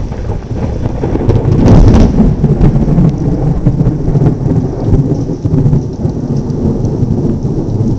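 Thunder rumbling on and on, swelling loudest about two seconds in, with rain falling steadily underneath.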